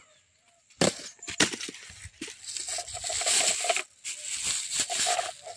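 Bubble wrap crinkling and crackling in the hands, starting about a second in, as an irregular run of small crackles and rustles.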